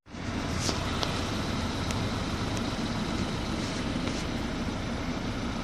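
Car engine idling steadily, a constant low rumble with hiss.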